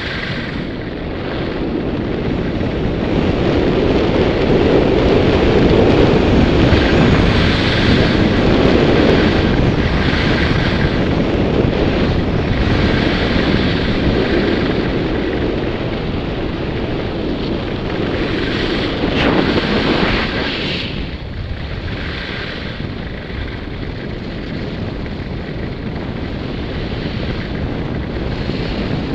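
Wind rushing over a helmet-mounted camera's microphone while descending a ski slope at speed, mixed with the hiss and scrape of edges on groomed snow. The rush grows louder a few seconds in, then eases about two-thirds of the way through.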